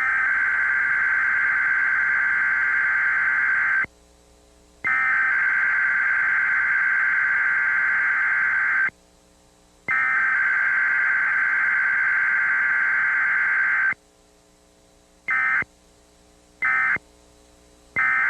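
Emergency Alert System SAME data bursts: three long buzzing digital header bursts about a second apart, then three short end-of-message bursts near the end.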